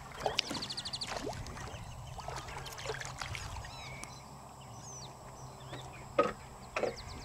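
Shorebirds and wading birds calling across a shallow lagoon: scattered high chirps and whistles, with a rapid run of quick notes about half a second in. A low steady hum runs underneath, and two short louder sounds come near the end.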